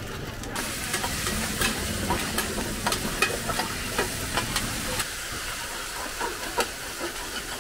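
Mussel and egg batter for hoi tod sizzling in oil on a large flat round pan, with two metal spatulas scraping and clicking against the pan as it is stirred and chopped. The sizzle comes in about half a second in, with irregular clicks throughout.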